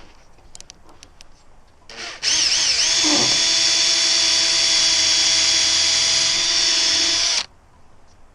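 Drill boring a pilot hole for a screw, with a small pilot bit. It spins up about two seconds in with a wavering whine, holds a steady high whine for about five seconds, then stops abruptly.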